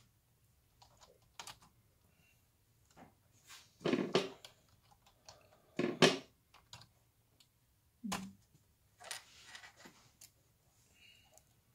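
Typing on a Logitech wireless keyboard with a built-in touchpad: irregular keystroke clicks, with louder knocks about four and six seconds in and a dull thump near eight seconds.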